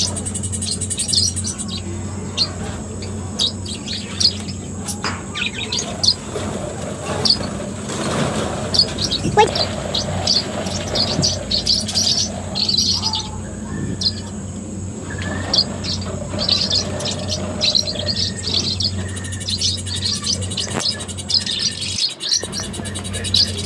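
A flock of budgerigars chattering and chirping in their colony aviary, many short overlapping chirps in quick succession over a steady low hum.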